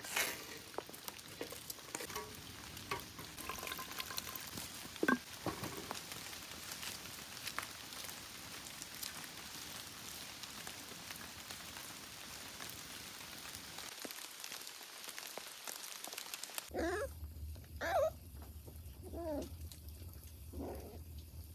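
Steady sizzling hiss with scattered knocks of a wooden spatula as beef pilaf is scraped from a hot iron pan into a clay pot. After a short quiet gap, a low steady rumble starts and a puppy gives four short whimpers that rise and fall in pitch.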